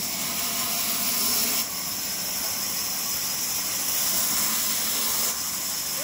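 Steady high hiss of sawmill machinery running.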